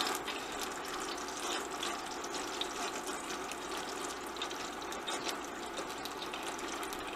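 Bologna slices frying in hot olive oil in a stainless steel pan: a steady sizzle dotted with small crackling pops.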